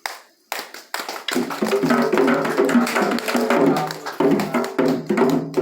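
Candomblé ritual percussion for Xangô starting up, typically played on atabaque hand drums: a few separate strikes in the first second, then from about a second and a half in a dense, steady drum rhythm.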